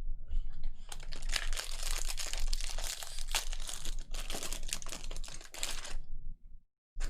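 Crinkling and tearing of a trading-card pack's foil wrapper as it is ripped open, with cards being handled: a dense crackle of small clicks for about five seconds that dies away near the end.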